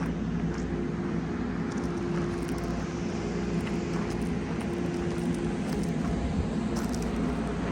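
Combine harvester running steadily: an even engine drone with a constant hum.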